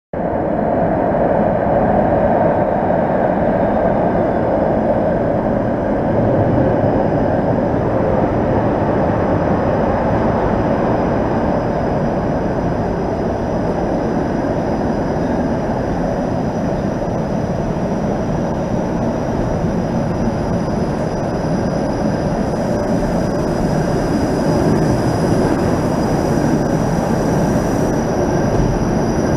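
Bombardier Flexity Outlook low-floor streetcar approaching slowly through a curved underground tunnel and pulling in at the platform, wheels running on the rails. A steady rumble carries on throughout.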